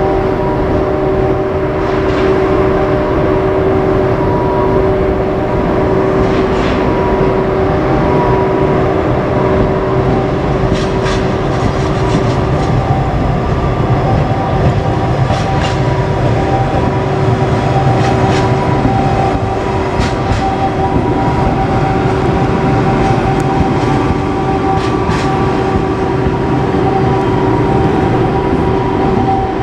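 A freight train passing close by, steady and loud, with sharp clacks from its wheels on the rail joints scattered through the second half. Several steady tones sound throughout.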